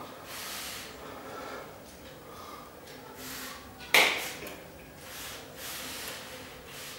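A signer's hands and clothing moving, with soft rustling and breathy swells, and one sharp hand clap about four seconds in, the loudest sound here.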